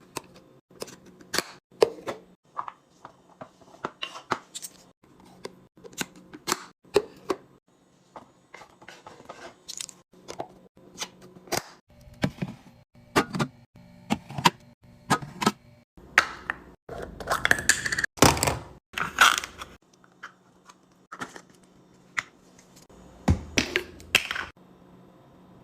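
Drinks and snacks being handled and set down while restocking a mini fridge: a string of light clicks, taps and knocks, with a few seconds of rustling in the middle.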